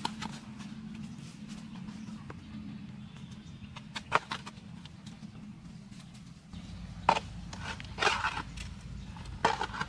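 Soil being dug and scraped by hand with a small blade around a half-buried basin: a few short scrapes and knocks, one about four seconds in and several in the last three seconds, over a steady low hum.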